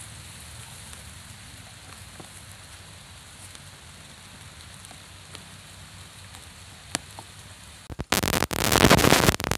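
Steady rain falling on a pond. About eight seconds in, loud, close rustling and knocking break in and go on to the end.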